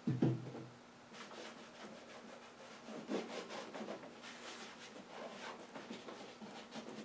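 A cloth rubbing and wiping the plastic of a push lawn mower in repeated short strokes, after a cleaner has been sprayed on. There is a brief low thump right at the start.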